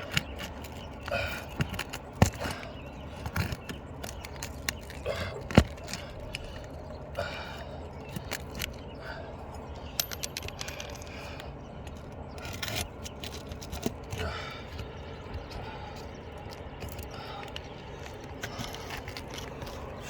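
Scraping and irregular sharp knocks of a tool prying at roof shingles to pull out roofing nails, with one loud knock about five and a half seconds in.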